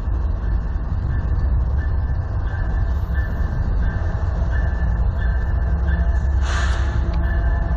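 GE diesel-electric freight locomotives approaching, with a steady low engine rumble. A short burst of hiss comes about six and a half seconds in.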